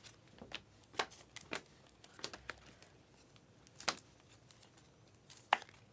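Glossy Panini Prizm trading cards being flipped through by hand, one card slid off the stack at a time, giving faint irregular clicks and scrapes, a few sharper snaps among them.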